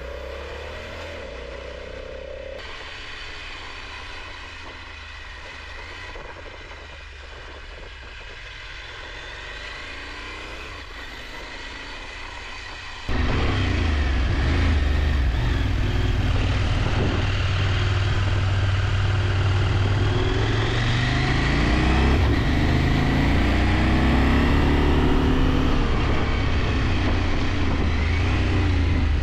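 Motorcycle engine running while riding, with wind and road noise. About halfway through, the sound abruptly gets much louder, and later the engine's pitch rises and falls.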